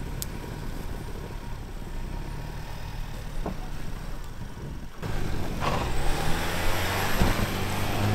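Two-door Ford Bronco's engine running at low revs, then revving up louder about five seconds in as it pushes through deep snow, with a hiss of the tyres churning snow.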